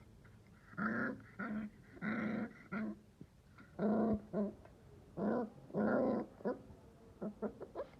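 A pet dog barking and growling at its owner in short, irregular bursts, about a dozen in all.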